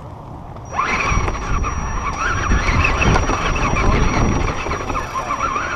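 Axial SCX10 1/10-scale RC rock crawler pulling away about a second in and driving over rock, its electric motor and gears whining up and down with the throttle over a steady high whine. The rattle and rumble of the chassis is heard close up from a camera on the truck's hood.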